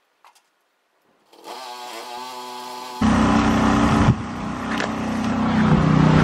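Pressure washer running. A steady motor hum starts about a second in, then at about three seconds it jumps abruptly to a much louder, steady drone as the wand sprays.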